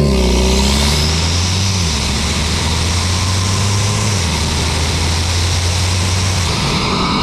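Mk8 Volkswagen GTI's EA888 Gen 4 turbocharged four-cylinder, fitted with a carbon-fibre intake, running at low revs while the car drives. The engine note holds mostly steady and drops a little in pitch twice, under a steady rush of wind and road noise.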